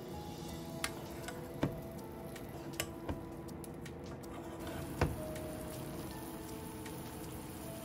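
Demi-glace sauce simmering in a non-stick frying pan around tofu hamburg steaks as a silicone spatula spoons it over them, with a few sharp clicks, the loudest about five seconds in. Soft background music with held notes plays underneath.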